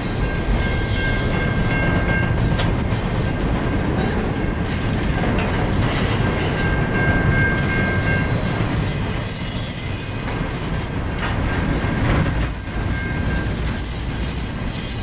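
Double-stack container well cars of a freight train rolling past with a steady low rumble and a high hiss, and the wheels squealing now and then.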